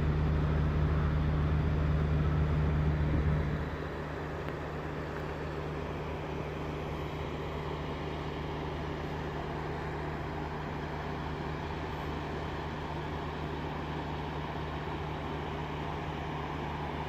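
Idling truck engine: a steady low hum, louder for the first three and a half seconds and then dropping to a quieter, even drone.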